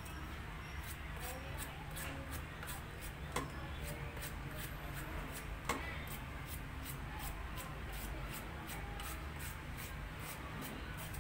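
Rhythmic scraping in even strokes, about three a second, with two sharp clicks a couple of seconds apart over a steady low hum.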